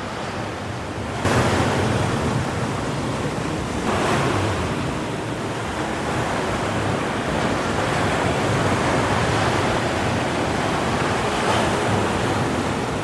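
Strong ocean surf at high tide: waves breaking in a continuous wash, with louder surges about a second in, around four seconds in, and near the end.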